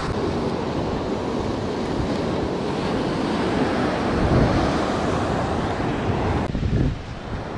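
Surf breaking and washing over the rocks at the foot of a sea cliff, with wind buffeting the microphone; the noise drops suddenly about six and a half seconds in.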